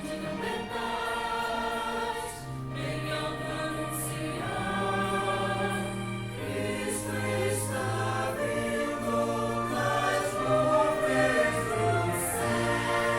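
Mixed choir singing a sacred choral piece with accompaniment, sustained chords changing every second or so.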